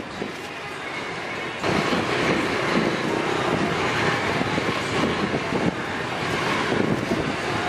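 A pot of tom yum soup at a rolling boil over a gas burner: a dense, rough bubbling and burner rush that gets louder about a second and a half in.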